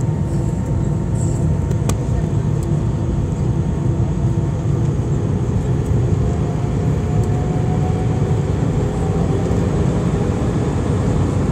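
Steady cabin noise of an Airbus A319 on approach, heard inside the cabin over the wing: a low, even rumble of the jet engines and air rushing past the fuselage. A faint tone climbs slightly in pitch midway, and there is a single light click about two seconds in.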